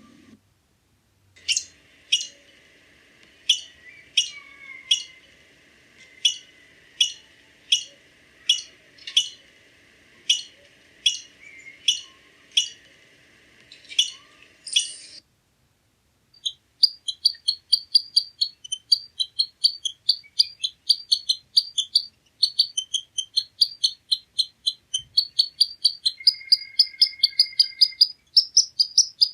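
Squirrel calls: sharp single chirps about one every 0.7 seconds over a faint steady hum, then after a short pause a fast, high-pitched chattering run of chirps, several a second.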